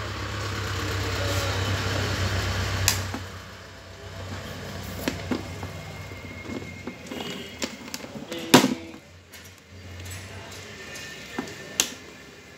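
Clicks and knocks of the TV's mains power lead being handled and plugged in. A steady hum at the start cuts off with a click about three seconds in; the sharpest knock comes about eight and a half seconds in.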